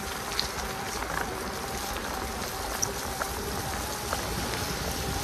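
Electric bike motor whirring at a steady pitch, over a constant wash of rain and tyre noise on a wet path, with a few scattered small ticks.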